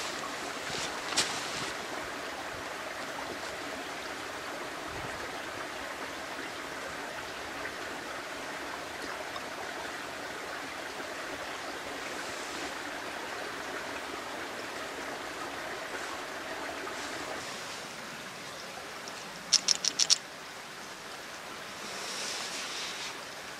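Steady outdoor rushing noise, like running water or wind in the trees, fills most of the stretch. A few seconds before the end come four quick, sharp clicks in a row as small camp-stove gear is handled.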